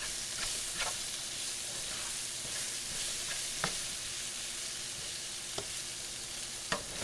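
Sliced squash, peppers and onions sizzling in olive oil in an uncovered skillet, a steady high hiss, with a few light clicks of a utensil against the pan.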